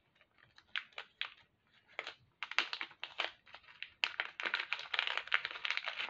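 Light, irregular clicks and crinkles of a small plastic bag of jewelry findings being handled, sparse at first and coming thick and fast in the last two seconds.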